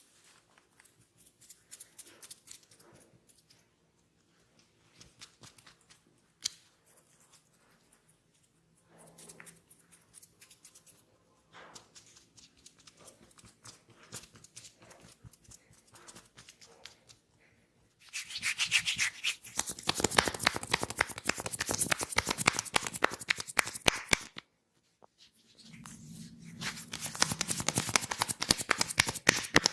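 Head massage: hands rubbing over oiled hair and scalp, soft and scattered at first, then turning into fast, vigorous, loud rubbing about two-thirds of the way in, with a brief pause before it starts again.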